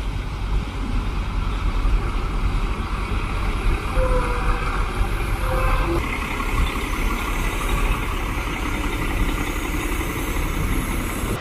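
Heavy six-wheeled military cargo truck's diesel engine running steadily as the truck drives slowly.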